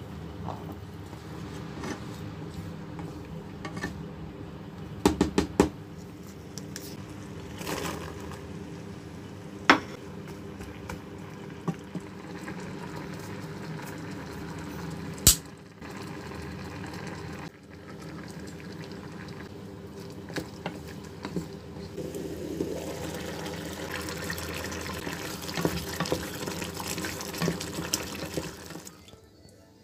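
Coconut milk simmering and bubbling in a metal pan on a stovetop, with a few sharp clinks of a utensil against the pan about five, ten and fifteen seconds in. A steady low hum runs underneath, and the bubbling hiss grows louder in the last several seconds.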